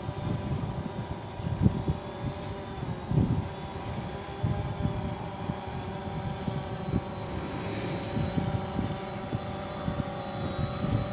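A steady machine hum made of several unchanging tones, over a low uneven rumble that surges now and then.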